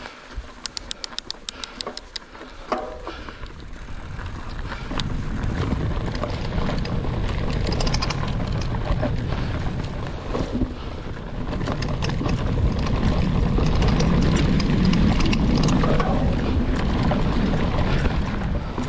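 Mountain bike on a dirt trail: a quick run of even clicks from the rear freehub near the start, then the rumble of the tyres on the dirt and wind buffeting the camera microphone, building as the bike picks up speed.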